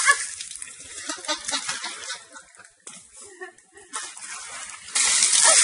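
Water splashing and pouring as an elephant bathes in a pool, with water streaming from its trunk. It is softer for a few seconds in the middle, then a louder, steady rush of water starts about five seconds in.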